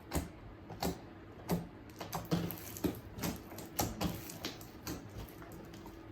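Thick slime being poked and squished by hand, making a run of sharp clicking pops, slow at first and quickening about two seconds in.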